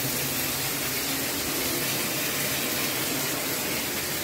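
Bathroom sink faucet running full into the basin, a steady rush of water. The strong flow shows the water pressure is back after a repair.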